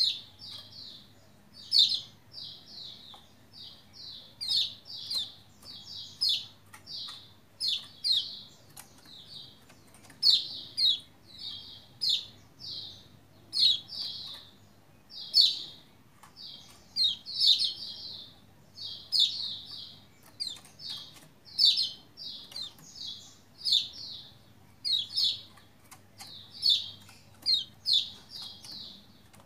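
Lombok white-eye (pleci Lombok, kecial kuning) calling in fast runs of short, high chirps, 'ciak ciak', repeated without a break. This is the lively 'gacor' calling that keepers play to spur other white-eyes to answer and sing.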